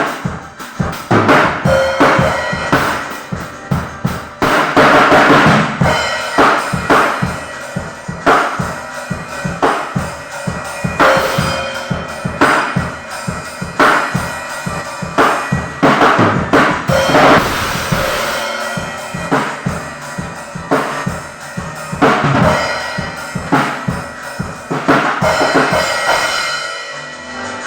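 Drum kit played in a steady beat, with kick, snare and cymbals.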